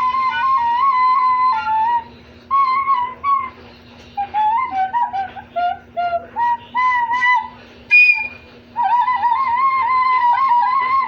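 Recorder played loudly: long, slightly wavering notes on one pitch, broken by pauses and runs of short notes, with a single higher note about eight seconds in.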